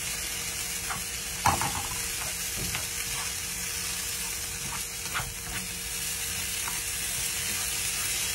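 Mashed green-plantain tigrillo sizzling in a nonstick frying pan while a spatula stirs and scrapes through it, with scattered knocks of the spatula against the pan. The loudest knock comes about a second and a half in.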